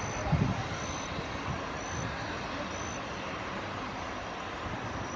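Airbus A320 taxiing with its jet engines at idle: a steady hiss and rumble. A short, high peep repeats about once a second over it.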